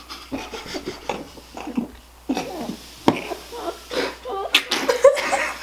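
A man and two children laughing hard in choppy bursts, the children stifling it behind their hands with water held in their mouths; the laughter gets louder near the end.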